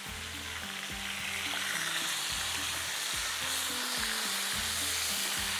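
Chicken tikka pieces and tomato slices sizzling in hot oil in a frying pan while being stirred and turned with a spatula. The sizzle grows louder over the first couple of seconds, over soft background music.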